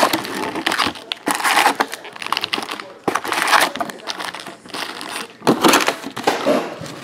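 Cardboard trading-card box being opened and its foil card packs pulled out and stacked: crinkling of the foil wrappers and cardboard, with a few light knocks as packs are set down.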